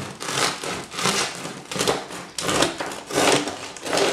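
Serrated bread knife sawing through the crisp crust of a freshly baked rustic loaf, a crunchy rasp with each stroke in steady repeated strokes.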